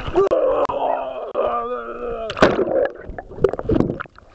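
A person's voice in held, wavering tones. About two and a half seconds in, a splash, then choppy, knocking water noise as the camera goes under the surface.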